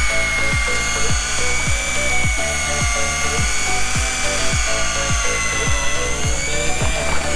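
Electric deep-drop fishing reel's motor whining steadily as it winds in line, its pitch wavering slowly, under background music with a steady beat of about two beats a second.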